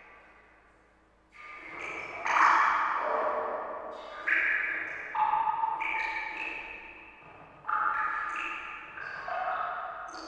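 Water drops plinking into water, each a sudden pitched ping that rings and fades slowly, about eight at irregular intervals.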